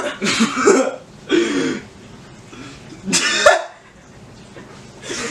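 A person coughing: three harsh coughs, the first the longest, the last a little after three seconds in.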